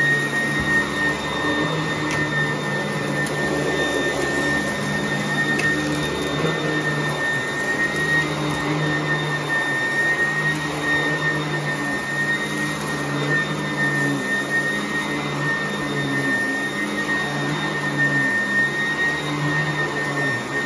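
Carpet-cleaning vacuum motor running steadily, with a constant high whine over a low hum.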